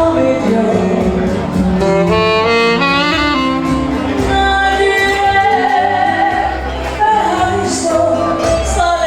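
Band music with singing and a lead melody line that plays a quick run of notes about two to three seconds in, over a pulsing bass.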